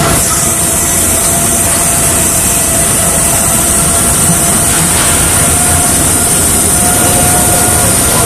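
Framo portable hydraulic cargo pump and its hydraulic supply running steadily under pressure: a loud, even machinery noise with a constant whine through it.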